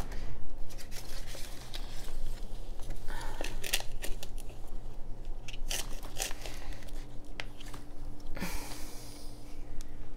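Clip-on microphone rustling against clothing as the wearer moves and settles: scattered crinkly clicks and rubbing, with two longer rustles about three and a half and eight and a half seconds in, over a faint steady hum.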